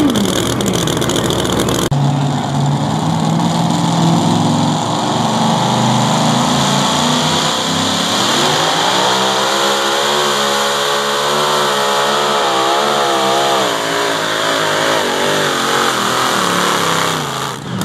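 Supercharged engine of a super modified two-wheel-drive pulling truck running at full throttle under load. From about 8 seconds in its pitch climbs and wobbles up and down. In the first two seconds a different pulling truck's engine is heard.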